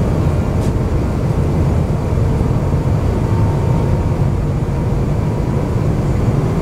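Airbus A350-900 cabin noise on approach: a steady low rumble of engines and airflow heard from a window seat, with a faint steady hum above it.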